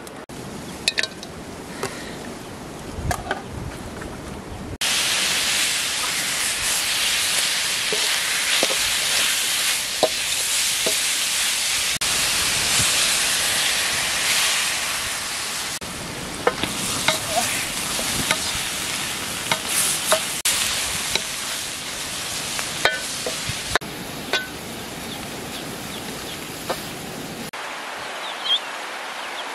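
Diced raw meat frying in hot oil in a steel wok over a wood fire, with a loud sizzle that starts suddenly about five seconds in and scattered knocks through it. The sizzle stops suddenly near the end.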